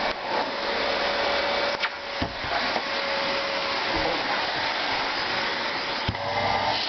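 Miele S712 vacuum cleaner running with a steady rush of suction and a faint steady whine, with a few brief knocks along the way.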